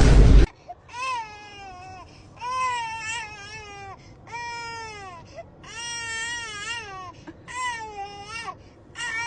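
A dog crying in about six long, wavering, whining howls, each about a second long and sliding down in pitch at the end. The cries come just after a loud, short burst of noise at the very start.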